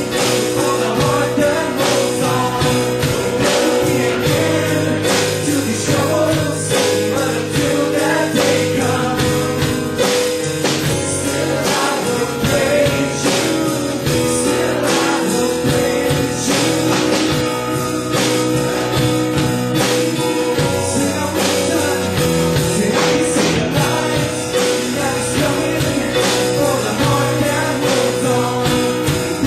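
Live worship band playing a Christian song: a man singing over electric guitar, drum kit and keyboard, with a steady drum beat.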